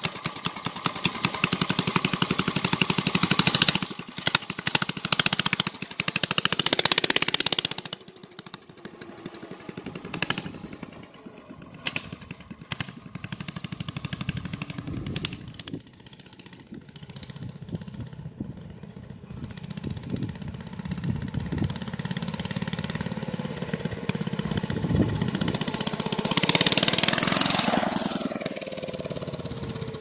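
Mini bike's 8 hp Briggs & Stratton single-cylinder flathead engine revving up as the bike pulls away, then fading into the distance. It grows louder again and passes close by with a falling pitch near the end.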